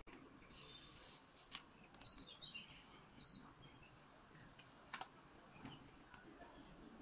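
Two short high-pitched beeps about a second apart: an air conditioner acknowledging the remote as it is switched on for a test run. A few faint clicks and bird chirps around them.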